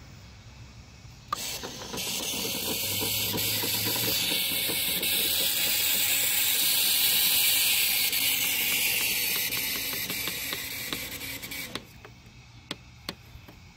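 Railroad crossing gate mechanism running as the gate arm lowers: a steady hissing whir with light clicking through it, starting with a click about a second in and cutting off when the arm comes level near the end, followed by a few separate clicks.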